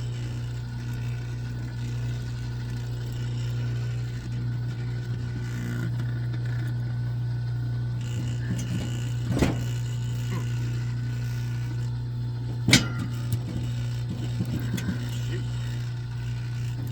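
Thick 400–500 MCM copper cable being forced through a wire stripper: two sharp knocks, about nine and thirteen seconds in, over a steady low hum.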